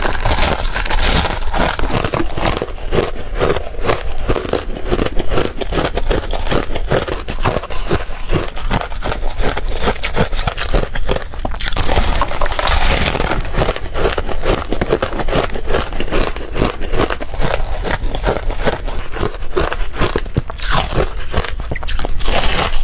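Ice being bitten and chewed close to the microphone: a dense, continuous run of sharp cracks and crunches.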